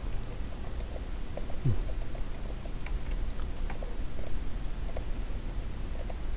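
Scattered light clicks of a computer mouse and keyboard over a steady low hum. A short low sound falls in pitch about one and a half seconds in.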